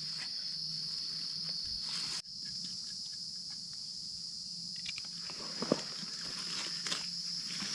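Steady high-pitched chorus of forest insects, with a few faint rustles and clicks later on. The sound drops out briefly about two seconds in.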